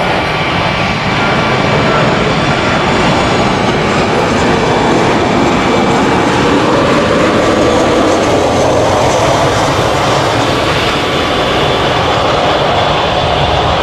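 Boeing 737-800 jet airliner landing: steady, loud jet noise from its CFM56-7B turbofans through the touchdown and roll-out, with a faint high whine above it.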